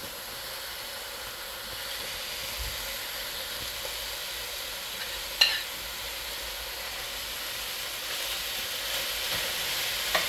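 Diced chicken frying in a pot with a steady sizzle, growing a little louder near the end as chopped herbs are spooned in and stirred. A single sharp tap comes about halfway through.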